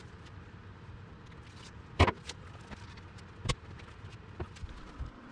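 A few sharp knocks and clinks of tools and parts being handled at an engine on a steel cart: the loudest about two seconds in, another about a second and a half later, then a couple of lighter taps, over a low background hum.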